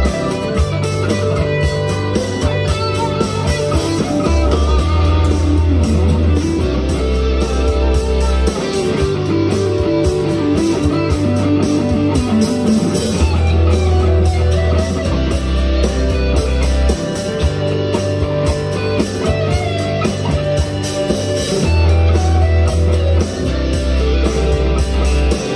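Firefly FFLPS Les Paul-style electric guitar played through an amp, a rock-style passage over held low bass notes, with a stepwise descending run of notes about ten seconds in.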